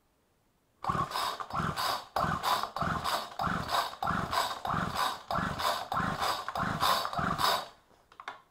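A Homelite string trimmer's two-stroke engine being cranked over by its pull-starter in quick pulls, without firing. The spark plug is out and a compression gauge is screwed into its hole for a compression test. There is a fast run of rasping pulses, about three a second, starting about a second in and stopping shortly before the end.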